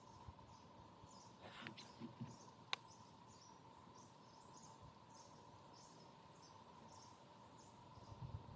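Near silence: faint high chirps repeating about twice a second over a steady faint hum, with a few soft knocks and one sharp click about three seconds in.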